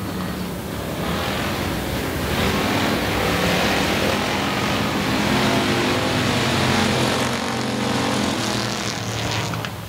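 Several dirt-track Factory Stock cars racing in a close pack, their engines running hard with pitches rising and falling as they power through the turns. A rushing noise builds up in the middle, and the sound drops suddenly just before the end.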